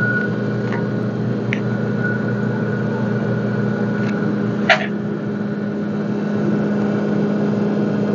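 Steady hum of running onboard machinery in a boat's engine room, with a few faint clicks and one brief knock a little past halfway.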